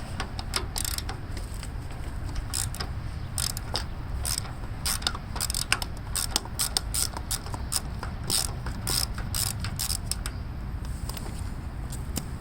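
Ratchet socket wrench clicking in irregular runs, loosening the nuts on the terminal studs of a tractor's foot starter switch.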